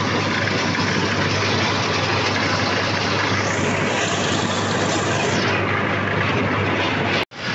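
Tractor engine running steadily under load while driving a rotary mulcher that shreds crop stubble, a dense even mechanical din with a low hum beneath. It breaks off abruptly near the end.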